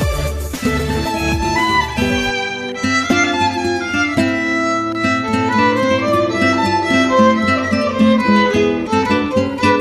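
Instrumental background music: a melody on violin with plucked guitar, with a heavy bass beat under the first two seconds that then drops away.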